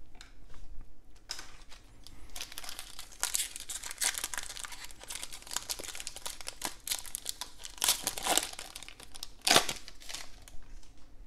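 Foil wrapper of a Donruss football card pack being torn open and crinkled by hand: a dry, crackling rustle that keeps going for several seconds, with the sharpest bursts near the end.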